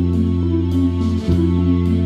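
Instrumental karaoke backing track with no vocals: guitar and bass holding sustained chords, changing chord about a second and a quarter in.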